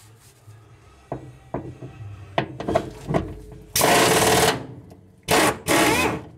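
Impact wrench hammering in three short bursts, about four, five and a half and six seconds in, as it loosens rusted inner-fender-to-cab bolts. A few light clicks come first, as the socket is set on the bolt.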